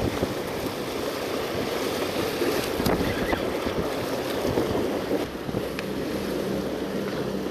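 Sea washing against rocks, with wind blowing on the microphone; a faint low steady hum comes in about two thirds of the way through.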